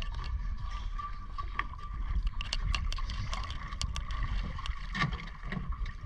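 Water sloshing with wind noise on the microphone, many small sharp clicks, and a faint steady whine.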